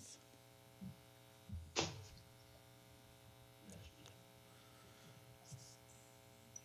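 Quiet steady electrical hum, with a brief sound about two seconds in and a few faint small sounds later.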